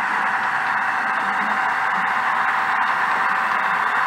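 Sound decoders in HO-scale EMD SD40-2 models, ESU LokSound with custom sound files, playing the diesel locomotive sound through their small onboard speakers. It is a steady, hissy rush with a thin steady whine over it.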